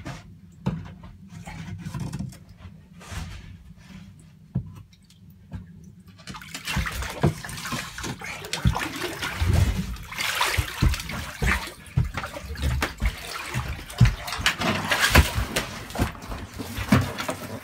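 Water splashing and sloshing, with knocks and rubbing, as a speared lake sturgeon is hauled up through the ice hole on its rope. It is quieter and scattered at first, then dense and busy from about six seconds in.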